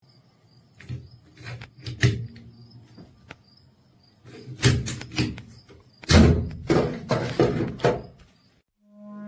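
A string of irregular clicks, knocks and dull thuds from hard objects being handled, loudest in a cluster after about six seconds. Near the end, music with a low held horn-like tone begins.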